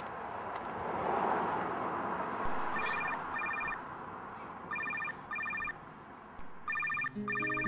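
Telephone ringing in a double-ring pattern: three pairs of short electronic trills about two seconds apart. Before the first ring there is a soft rushing noise.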